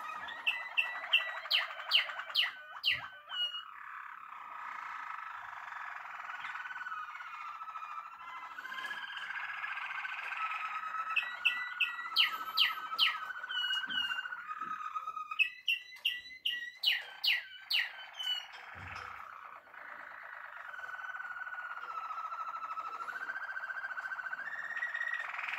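Domestic canaries singing: a continuous warbling song with trills, broken three times by runs of loud, sharp repeated notes, about three a second.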